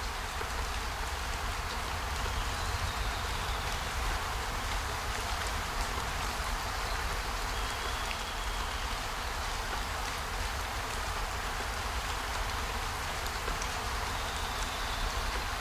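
Steady rushing water noise, like rain or running water, with a low rumble underneath and no breaks.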